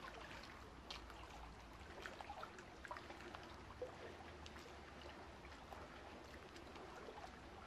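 Faint water ambience: a quiet trickle with scattered small drips and ticks.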